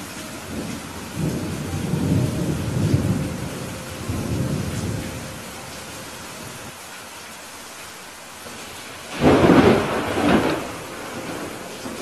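Thunderstorm: steady rain hiss with a low rolling rumble of thunder in the first half, then a sharp, much louder thunderclap about nine seconds in, cracking again a second later before fading back to the rain.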